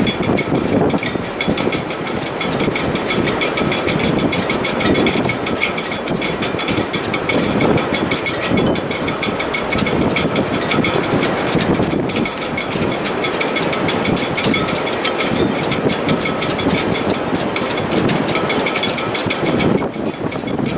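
Strong wind through a mast's steel shrouds (standing rigging) in heavy weather: a gusting rush that swells and eases every few seconds, with several steady high whistling tones from the wires.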